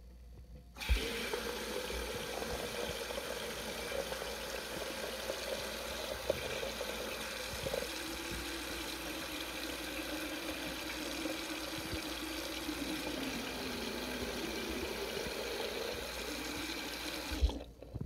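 A stream of water splashing steadily into a sink basin. It starts about a second in and stops shortly before the end, with a faint tone in the splash that slides lower in the last few seconds.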